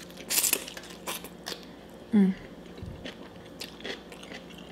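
Close-miked eating of noodles: a loud slurp as they are sucked in about half a second in, then chewing with many small wet clicks and smacks. A short hummed "mm" from the eater comes about two seconds in.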